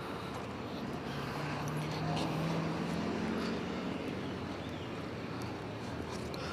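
Street traffic noise with a car passing on the road alongside. Its engine hum swells through the middle and fades again.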